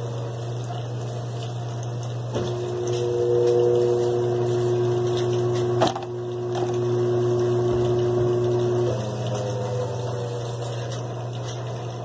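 Electrolux LT15F top-load washing machine agitating a load of clothes. Its motor gives a steady hum throughout; a higher whine cuts in a couple of seconds in and drops out about nine seconds in, and there is a single knock near the middle.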